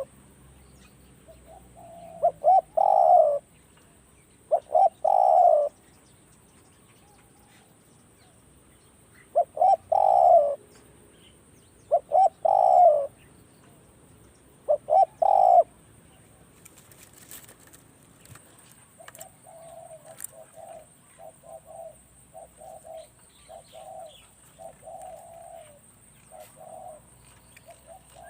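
Spotted dove cooing: five loud phrases in the first half, each a couple of quick clipped notes running into a longer coo. After these comes a quieter, quicker string of short coos.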